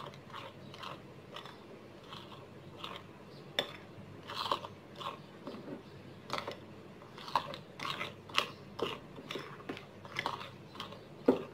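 A spoon stirring thick chocolate cake batter in a glass bowl, with irregular soft scrapes and clicks as it works the paste and knocks the bowl.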